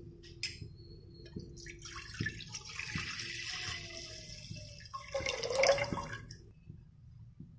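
Water poured into an empty non-stick pot, splashing as it fills, with the splashing louder for a moment about five seconds in.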